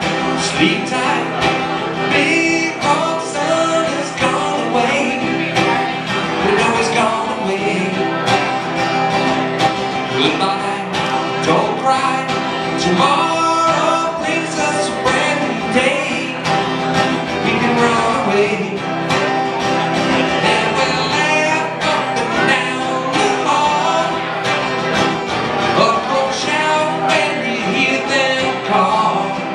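A man singing a country-folk song while strumming an acoustic guitar, performed live into a vocal microphone.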